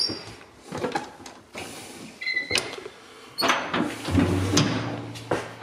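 A metal door with a wheel handle being opened: clicks and knocks from the handle and latch, a short high squeak a little over two seconds in, then a low steady creak lasting about a second and a half near the end.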